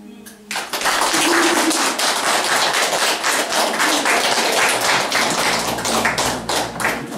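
Music ends on a held chord, and about half a second later a small group of people starts applauding, dense clapping that eases off a little near the end.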